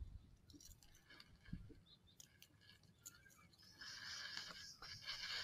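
Faint small clicks and rustles of fishing tackle being handled as a lure is changed on the line. A soft steady hiss comes in about four seconds in.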